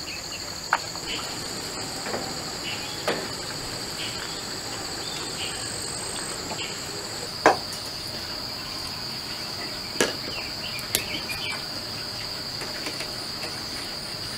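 Insects trilling steadily in a continuous high-pitched drone, with a second, higher drone that stops about halfway. A few scattered knocks sound over it, the loudest about halfway through.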